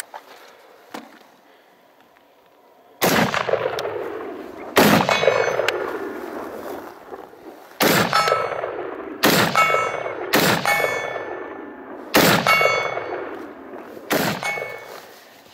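Seven shots from a Black Rain Ordnance BRO Scout AR-15 rifle with a muzzle brake, unevenly spaced, starting about three seconds in. Each shot is followed by a steel target ringing with a clear, high tone as it is hit.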